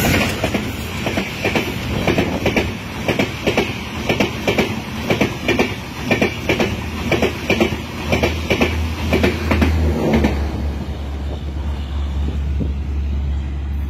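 Mitali Express passenger coaches passing at speed close by, their wheels clattering rhythmically over the rails. About ten seconds in the clatter stops, leaving a low steady rumble as the end of the train moves away.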